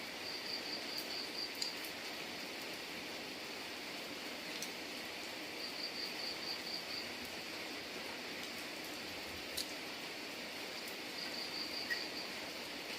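Steady rain hiss with a few sharp drip clicks. Three short bouts of rapid, high-pitched chirping cut through it, about five pulses a second.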